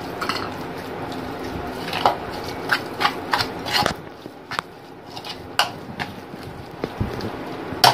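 A metal spoon stirring and mashing a thick green masala paste in a mixing bowl, with irregular clicks and scrapes of the spoon against the bowl. A steady background hum runs under the first half and drops away about four seconds in.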